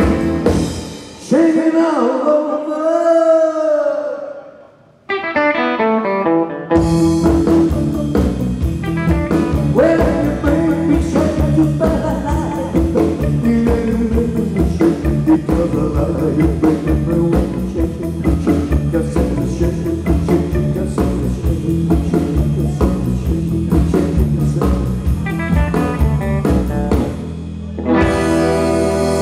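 Live rock and roll band: male lead vocals over electric guitars and drums. Shortly after the start the band drops out while the singer holds and bends a note alone, a falling run of notes leads back in, and the full band resumes; near the end the playing gives way to long held notes.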